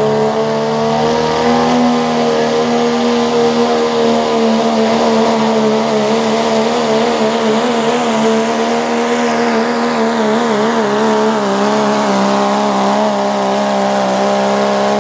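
Diesel pickup truck pulling a weight-transfer sled, its Cummins inline-six run hard at high, nearly steady revs under full load, the engine note wavering slightly as the load changes.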